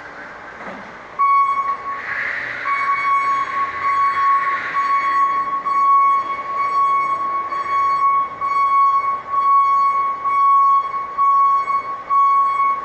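A steady, high-pitched electronic alarm tone sounds from about a second in, with a brief dip near two seconds.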